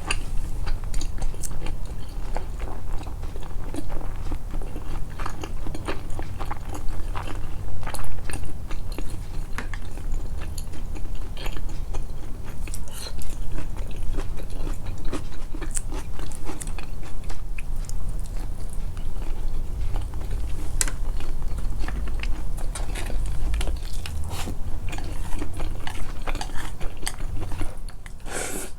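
Close-miked chewing and biting of a person eating, with many irregular wet clicks and soft crunches from the mouth, over a steady low hum.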